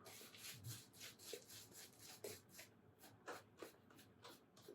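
Faint, repeated rubbing strokes of wet shaving on lathered skin, about two a second.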